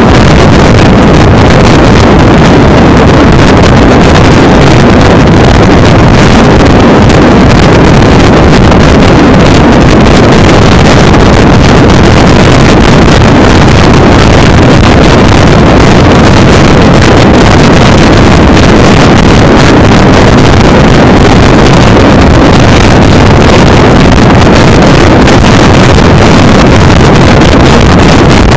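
Loud, distorted wind buffeting over the microphone of a camera in a car moving at road speed, with road noise under it and no letup.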